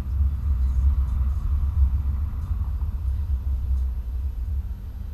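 Low, steady rumble of a car's engine and road noise heard inside the cabin while driving, easing slightly toward the end.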